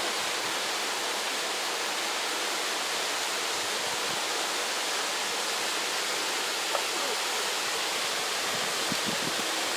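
Steady rushing of stream water, an even hiss with no change.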